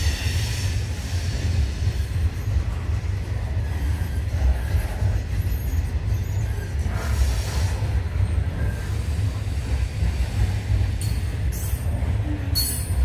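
Freight train's coal hopper wagons rolling past: a steady low rumble of wheels on rail, with high-pitched wheel squeal in the first second and again around seven seconds in, and several short squealing bursts near the end.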